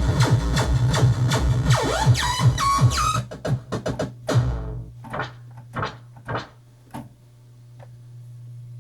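Novation XioSynth synthesizer playing a busy electronic pattern with gliding tones and rhythmic percussive hits, which breaks off about three seconds in into a handful of separate fading hits. A low steady hum is left underneath.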